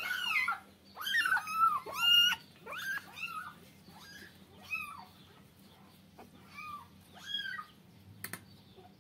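Young kittens mewing repeatedly in high, arching cries as they are rubbed dry with a towel after a bath; the mews come thick and loud over the first two seconds or so, then fainter and further apart. A short click sounds near the end.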